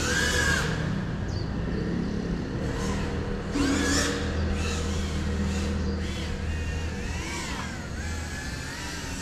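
GEPRC CineLog35 FPV cinewhoop's brushless motors and ducted propellers whining, the pitch rising and falling as the throttle is worked, loudest at the start and again about four seconds in, over a steady low hum.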